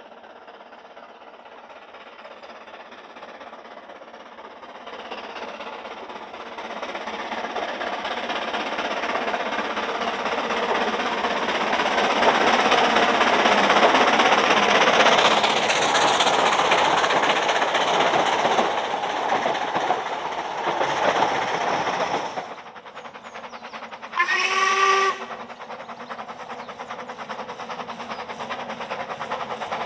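Narrow-gauge steam train working along the line, growing steadily louder as it nears, then cut off suddenly. A single short steam-whistle blast follows, about a second long, and then a train running again, quieter and building.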